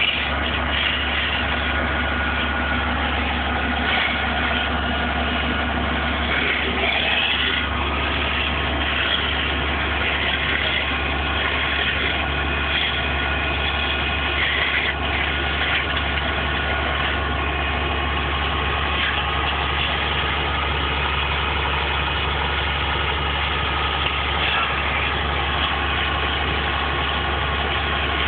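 A large vehicle engine idling steadily, with no change in pitch.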